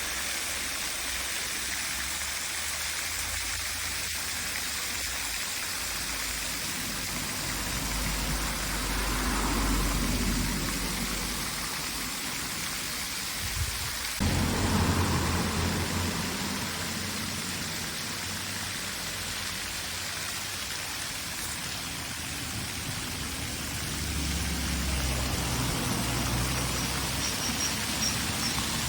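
Steady rushing of river water, with low wind buffeting on the microphone a few times.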